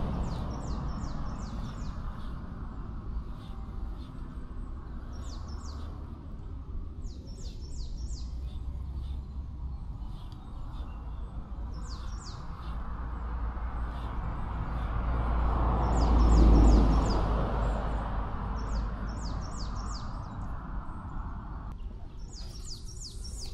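A songbird calling in short runs of quick falling chirps, repeated every few seconds. Beneath it is a steady rushing noise that swells loudest about sixteen seconds in.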